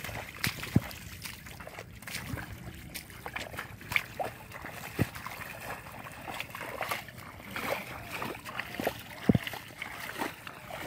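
Wet mud and shallow water squelching and splashing as hands dig and feet tread through a muddy pond bed, a scatter of irregular splats and slaps with the sharpest about a second in and near the end.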